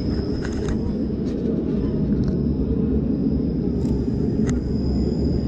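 Several short, sharp clicks of a camera shutter firing during a portrait session, spaced unevenly over a steady low city rumble.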